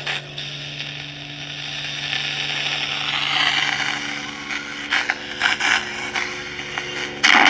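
Speaker of a 1952 Philco 52-942 AM tube radio hissing with static over a steady low hum, with scattered crackles; the background noise is the sign of the receiver's sensitivity coming up as its trimmers are peaked. The hiss swells about three seconds in, and near the end the sound jumps suddenly louder as a station comes in.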